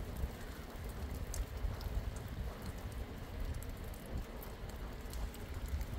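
Steady rain falling, with scattered sharp drop ticks over a continuous low rumble.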